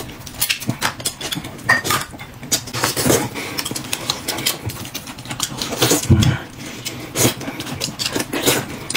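Close-up eating: irregular wet chewing and smacking with utensils clicking against dishes, and a couple of brief low mouth sounds near six and seven seconds.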